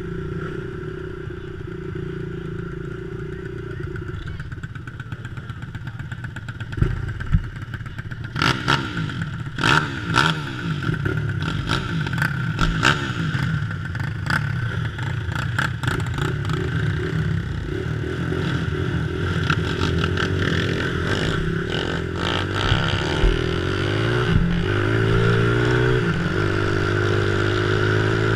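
Vintage three-wheeler ATC engines idling and blipping while lined up for a flat track race, with scattered knocks and clatter in the middle. Near the end the engine revs up with rising pitch as the trike accelerates away at the start of the heat.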